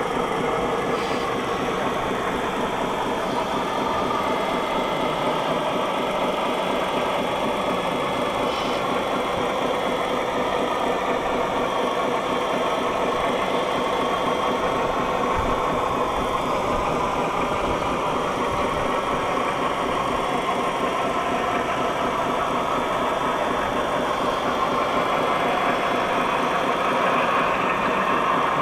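Steady engine-like running of radio-controlled scale trucks and excavators at work, with an even rapid pulse and no pauses.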